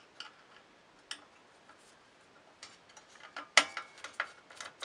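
Screwdriver backing out a screw from the metal CRT frame of a Macintosh 512K: a few light clicks, a pause, then an uneven run of clicks and taps with one sharp click about three and a half seconds in.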